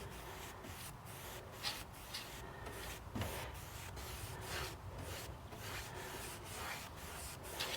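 Small paintbrush stroking paint onto a wooden shed door: a series of faint, soft brushing rubs.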